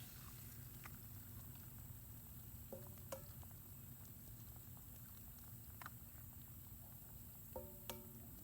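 Faint scattered clicks and taps of cooking at a cast iron pan over campfire coals, with two short ringing knocks, about three seconds in and near the end.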